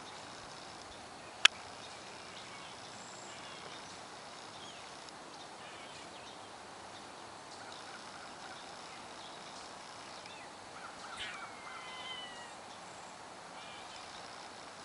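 Quiet pond-side ambience with faint distant birdsong, broken by a single sharp click about a second and a half in. A little over ten seconds in, a bird gives a short call that glides down in pitch.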